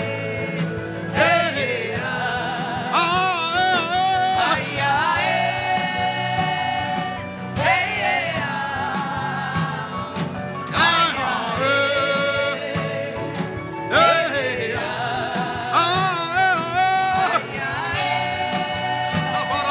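Worship music: a voice singing long, wavering melodic phrases with heavy vibrato over steady instrumental backing.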